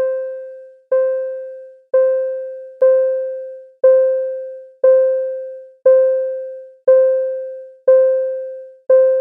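Earthquake early-warning software's alert chime, an electric-piano-like tone struck about once a second, ten times, each one dying away before the next. It signals that the estimated shaking has arrived at the location and is under way.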